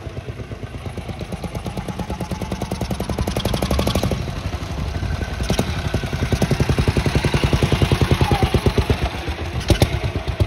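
1935 Moto Guzzi motorcycle engine running under way, its separate firing beats plainly audible, growing louder as the bike comes past. Two sharp clacks sound, one about halfway and one near the end.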